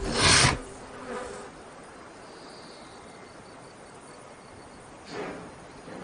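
A bull snorts loudly once at the start, with softer snorts about a second in and near the end. In between there is a faint steady insect buzz.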